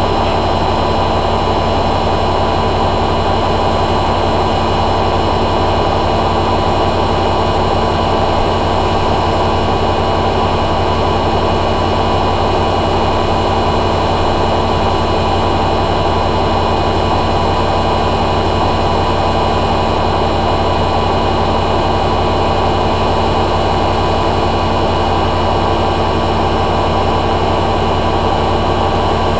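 Hoover A3786 Logic Deluxe washing machine on its final spin, the drum turning at a steady high speed with a constant whine of several steady tones over a low hum.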